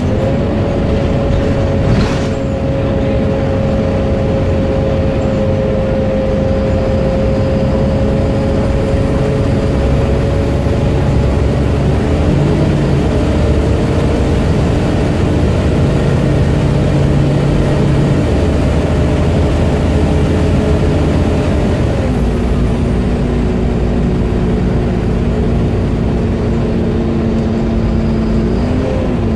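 Volvo B7 StreetCar articulated bus driving, heard from inside the passenger cabin: its six-cylinder diesel engine runs steadily, with the engine note shifting in pitch about twelve seconds in, again around twenty-two seconds and near the end. There is a short knock about two seconds in, and a thin high whistle rises and falls in the middle.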